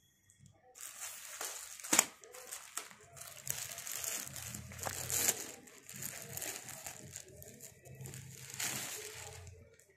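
Rustling and crinkling as a T-shirt is handled on a counter, with a sharp click about two seconds in.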